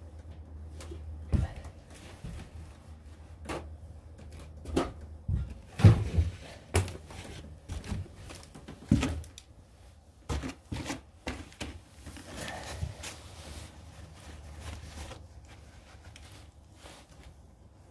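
Scattered knocks, clicks and rustles of objects being handled and set down, with a low steady hum underneath that fades about halfway through.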